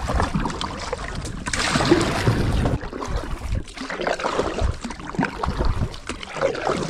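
Kayak paddle strokes: the blades splash and wash through the lake water in uneven surges.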